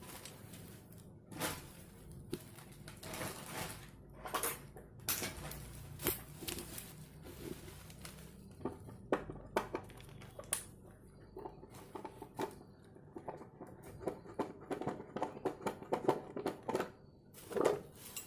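Irregular clicks, knocks and short scrapes of hands working on a motorcycle speedometer unit as it is being opened up. The clicks bunch more closely together in the second half.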